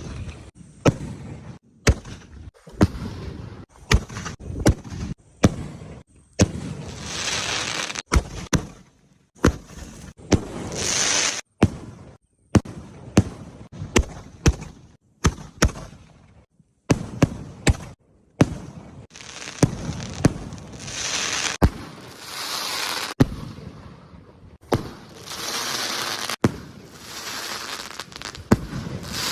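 Diwali firecrackers going off: dozens of sharp bangs at irregular spacing, with several stretches of hissing lasting a second or two between them.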